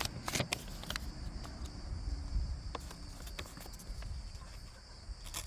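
Scattered light clicks and taps from a Kizer Bugai folding knife being handled and checked, over a low steady rumble and a faint high whine.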